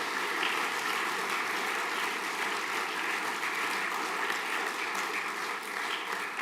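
An assembly hall audience applauding, a dense steady sound of many hands clapping that starts sharply and holds throughout.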